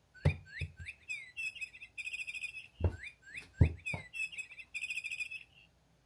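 Electronic bird toy playing its recorded birdsong: a phrase of quick chirps and trills, played twice the same way. A few knocks come at the start of each phrase.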